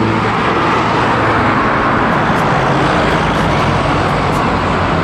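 Street traffic noise: a steady rush with the low hum of a double-decker bus engine running as the bus drives along the road.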